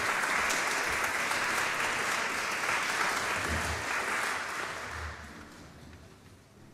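Audience applauding in a concert hall, the clapping dying away about five seconds in.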